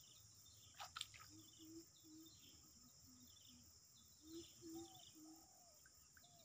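Faint wild ambience near water. A steady high insect drone runs under soft, short low calls that come in runs of three, about two or three a second, with a few faint higher chirps. Two light clicks sound about a second in.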